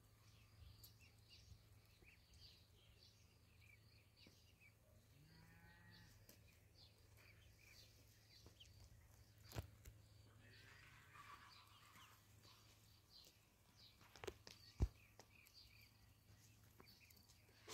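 Faint peeping of a flock of ducklings, many short high calls overlapping. A brief lower call comes about five seconds in, and there are a few sharp knocks in the second half, the loudest about fifteen seconds in.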